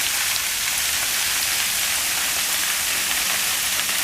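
Sleet (ice pellets) falling and pattering on the ground and surfaces as a steady, even hiss.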